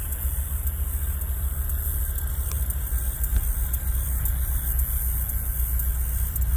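Steady low rumble of GE diesel locomotives, a rebuilt Dash 9 (AC44C6M) and a Dash 9, each with a 16-cylinder FDL engine, as they slowly pull a freight train into a yard.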